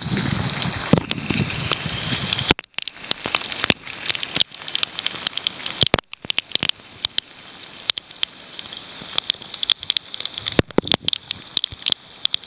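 Heavy rain with wind buffeting the microphone for the first two seconds or so. After that it turns to many irregular sharp taps and splashes of raindrops striking close to the microphone, over a steady hiss of rain.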